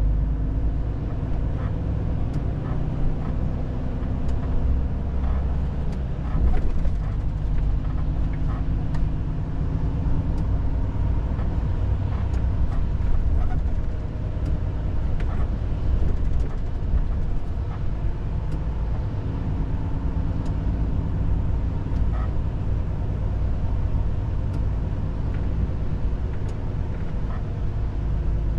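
Volvo FH 500 truck's six-cylinder diesel running under way, a steady low drone heard from inside the cab, with scattered light clicks and rattles.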